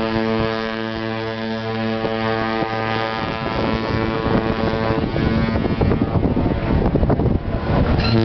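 Cruise ship horn sounding one long, deep, steady blast that fades out about five seconds in, followed by wind buffeting the microphone.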